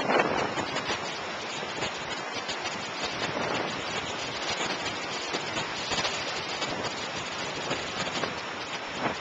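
Lake waves washing onto the beach, with wind buffeting the microphone: a steady rushing noise with a fine crackle.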